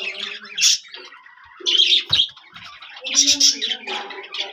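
Domestic pigeons calling: several short, high chirping and squawking calls, with lower cooing tones under some of them.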